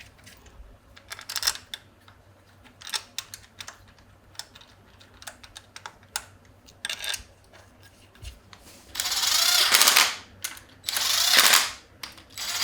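Light metallic clicks and taps of bolts and parts being handled, then, about nine seconds in, two runs of about a second each of a ratchet wrench spinning bolts down.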